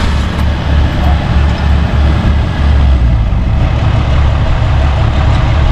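Large diesel engine running steadily, with a strong low rumble.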